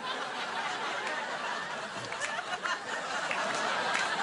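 Studio audience laughing, slowly growing louder.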